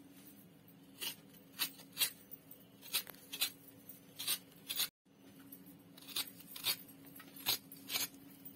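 A serrated metal hand scraper rasping fresh coconut meat out of a half coconut shell in short strokes, about one or two a second and irregularly spaced.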